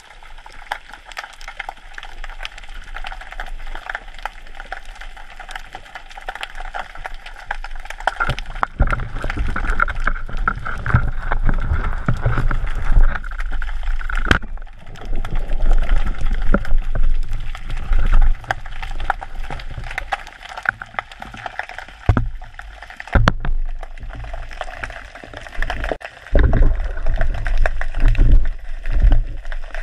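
Underwater sound picked up by a camera in a waterproof housing on a speargun: a steady crackling hiss full of fine ticks, with surging low rumbles of water movement starting about a third of the way in. A sharp crack about halfway through, another about three quarters of the way in.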